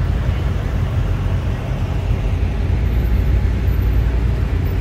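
Chevrolet Corvette V8 engines rumbling at low speed as the cars drive past, a deep, fairly steady exhaust note.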